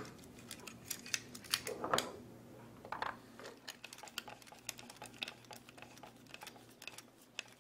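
Light, irregular metallic clicks and taps of screws, nuts and a hand tool being worked on an aluminium frame as the screws are snugged up, not cranked down.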